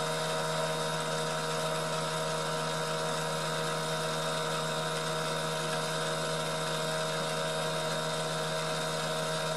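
Electric fuel pump running with a steady whine and hiss, fuel spraying as a mist from a pinhole in a rusty steel fuel pipe: the source of the fuel leak.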